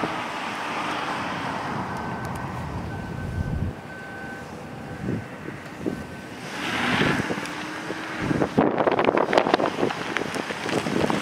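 Wind buffeting the microphone, with a faint steady hum underneath. Louder gusts come about two-thirds of the way through and again near the end.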